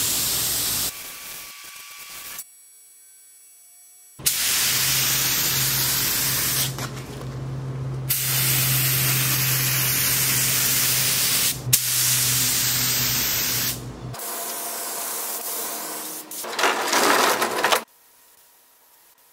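Gravity-feed air spray gun hissing as it sprays primer, in several long bursts broken by short pauses, with a low steady hum under the longest burst. The hiss stops near the end, leaving quiet room tone.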